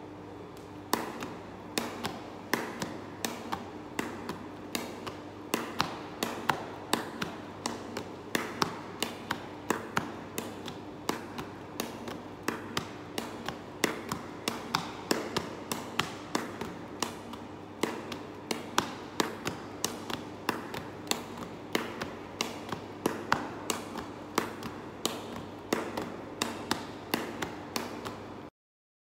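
Baseballs thrown overhand against a wall and caught in a leather glove: a fast, steady run of sharp knocks, ball off the wall and ball into the glove, about two or three a second, stopping suddenly near the end. A steady low hum runs underneath.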